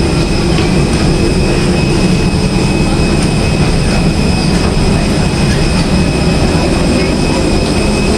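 Steady drone inside an airliner cabin: a low rumble of air and engine noise with a constant high whine above it.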